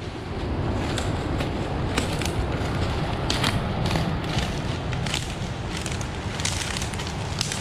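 Footsteps crunching and snapping through dry leaf litter and twigs, irregular crackles over a steady low rushing.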